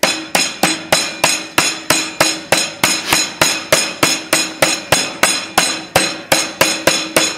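Meat mallet pounding a veal cutlet under plastic wrap on a wooden cutting board: a steady run of sharp knocks, about three and a half a second, flattening the cutlet to an even thickness.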